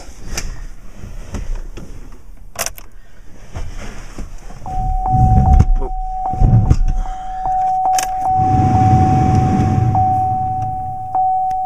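Keys jangling and a click as the key goes into the ignition, then a steady warning chime dinging about twice a second while the Chevrolet Colorado's Vortec 3.7-litre inline-five cranks and starts, with low engine rumble in bursts and then running.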